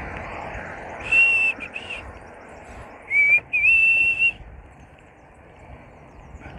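A person whistling four clear notes: two short ones about a second in, then a lower rising note and a long held note near the middle, over a steady low background of movement noise.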